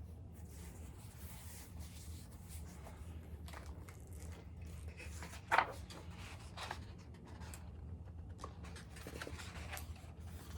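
Faint rustling and handling of paper and cardboard as a hardcover book is handled and its pages turned, with one sharper click about five and a half seconds in. A steady low hum runs underneath.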